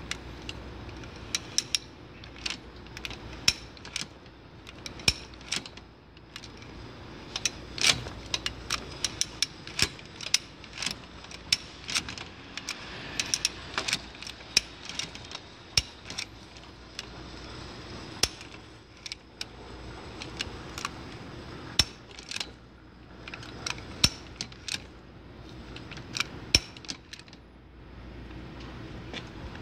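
Two-way angle-adjusting device being worked by hand: many sharp metallic clicks, irregularly spaced and some in quick pairs. Each click comes as the load on the lever is released and the mechanism lets the arm step forward; under load it holds.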